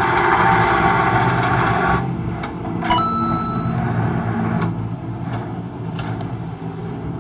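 A motor vehicle engine running steadily under a loud hiss that cuts off suddenly about two seconds in. About three seconds in there is a click and a short high tone.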